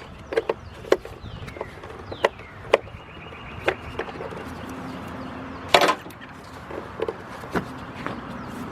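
Hand tools clicking and knocking on metal while a bolt on an engine's timing cover is worked loose. The clicks come at irregular intervals, with one louder knock about six seconds in.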